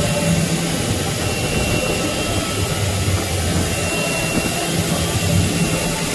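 Steady machine noise: an even hiss over a low hum, with no breaks or strokes.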